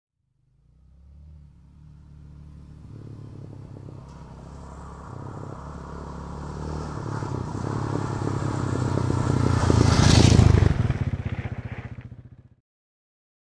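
Off-road motorcycle approaching along a stony dirt trail, its engine growing steadily louder with its note changing in steps several times. It passes close by about ten seconds in with a loud rush of noise, fades briefly, and cuts off abruptly.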